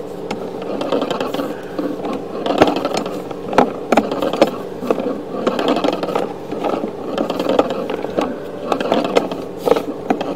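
Sewer inspection camera's push cable being pulled back through the pipe: irregular scraping and clattering over a steady hum.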